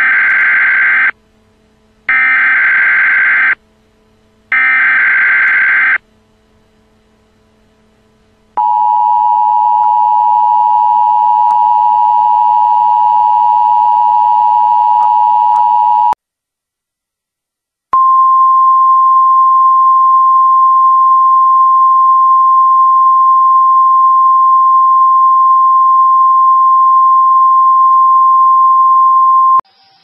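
Emergency Alert System tones: three short bursts of SAME header data, then the two-tone EAS attention signal held for about eight seconds. After a short gap comes a steady single-pitch weather radio warning alarm tone lasting about twelve seconds.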